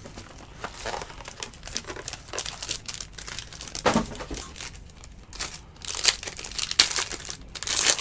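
Plastic and foil wrapping of a Tier One baseball card pack crinkling and tearing as it is opened by hand, in irregular crackles that get louder near the end.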